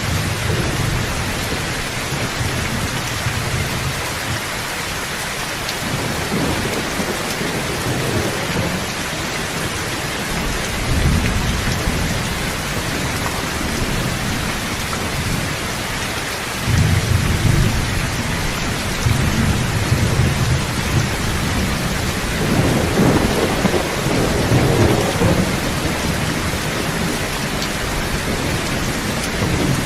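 Steady rain with low rolls of thunder coming and going, the strongest rumble starting a little past halfway.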